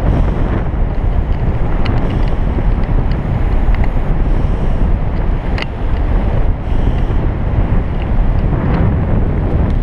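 Steady rush of wind over a camera microphone during a descent under an open parachute canopy, with a single sharp click about five and a half seconds in.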